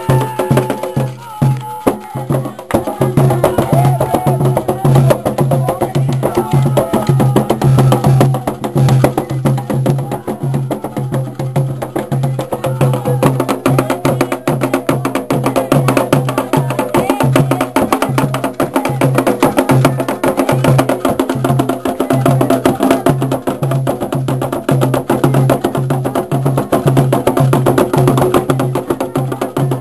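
Afro-Brazilian ritual music: hand drums, probably atabaques, beat a steady, even rhythm with sharp wood-block-like clicks, and a group sings a chant over it from about three seconds in.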